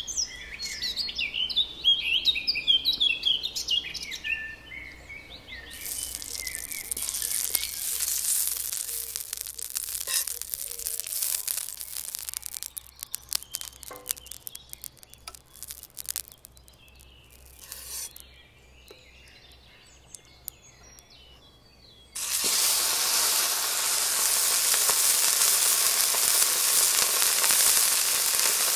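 Birds chirping, then clarified butter sizzling as it is brushed over a hot steel griddle plate. About 22 seconds in, a ribeye steak is laid on the buttered griddle and a sudden, steady frying sizzle sets in.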